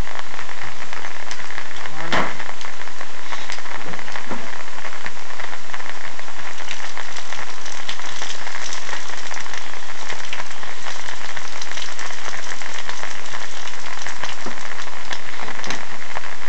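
Rain hitting an umbrella held over the camera: a loud, steady, static-like pattering, with one sharp knock about two seconds in.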